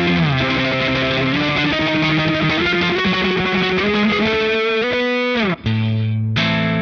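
Electric guitar played through a Strymon Compadre compressor and boost pedal, its boost in dirty mode with flat EQ and studio-mode compression with dry signal blended in: overdriven sustained chords that slide in pitch, with a couple of short breaks between chords near the end.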